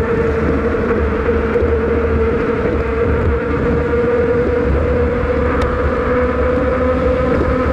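Riding a bicycle: a steady buzzing whine over a constant low rumble of wind on the microphone.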